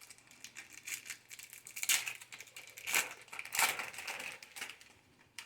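Foil Yu-Gi-Oh booster pack wrapper crinkling and crackling as it is handled and torn open, in a string of irregular short bursts.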